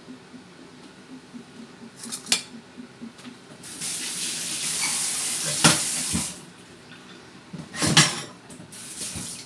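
Kitchen tap running into a stainless steel sink for about two and a half seconds as hands are rinsed under it, with a sharp click partway through. About eight seconds in, a utensil clatters loudly against the sink, and the tap hisses briefly again near the end.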